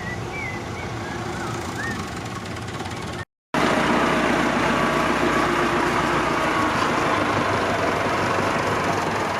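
Heavy truck engine running steadily; after a cut about three seconds in it is louder and closer, with a steady hum.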